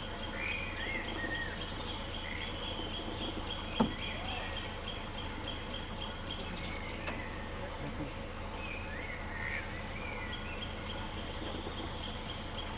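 Crickets and other insects chirring in a steady, evenly pulsing chorus at dusk in the forest, with a few short rising-and-falling chirps and one sharp click about four seconds in.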